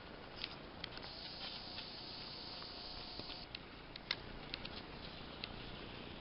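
Spring forest ambience: a steady low hiss with scattered light ticks and taps, and a higher hiss that runs for a couple of seconds about a second in.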